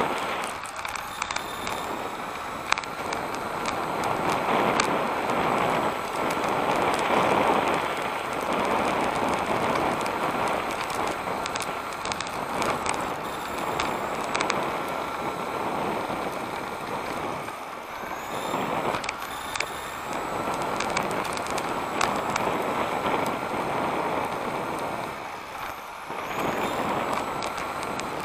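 Onboard sound of a 1/10 electric RC touring car (Tamiya TA06 with a Hobbywing V10 21.5-turn brushless motor) racing: a motor and gear whine that rises in pitch each time it accelerates, over the hiss and rattle of the drivetrain and tyres on asphalt. Sharp clicks from the chassis now and then.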